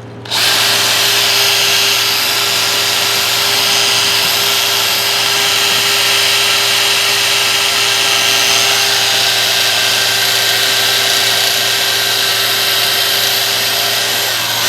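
Small power tool running steadily, spinning a brush that scrubs rust out of an old adjustable wrench; it starts up about half a second in.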